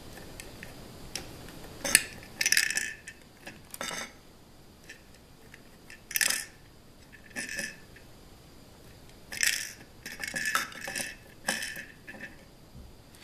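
Small plastic LEGO pieces clicking and rattling as they are dropped and pushed into small plastic bins, in short clattery spells every second or two.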